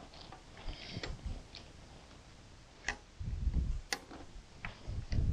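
Screwdriver working the anchor of a bull ring truck tie-down in a pickup's bed rail: scattered sharp metal clicks and ticks as the tool turns. Low rumbles come about three seconds in and again near the end.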